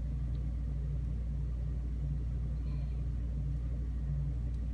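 Steady low hum with no clear sound from the lock.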